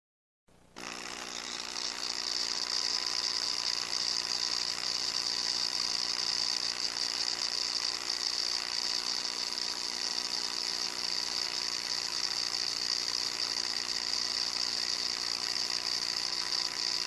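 Small DC hobby motor spinning a propeller on a homemade toy airplane: a steady high whine. It starts about half a second in, builds over the next second or two, then holds steady.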